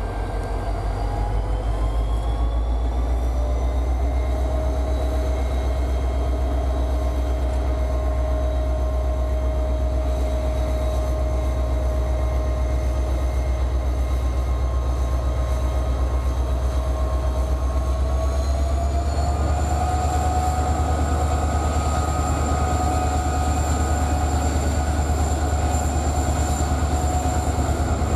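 An M62-type (ST44) diesel locomotive's engine running under load, a loud steady drone as it hauls a freight train. The engine note climbs about two seconds in and again about eighteen seconds in as the engine speeds up.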